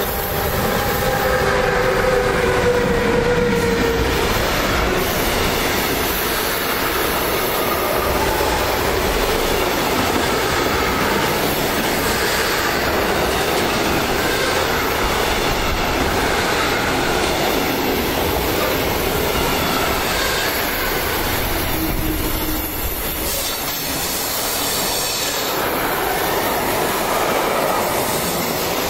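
Siemens Vectron electric locomotive passing close by at the head of a freight train, its whine of a few tones dipping slightly in pitch over the first few seconds, followed by the long, steady rolling noise of pocket wagons loaded with semi-trailers running past on the rails.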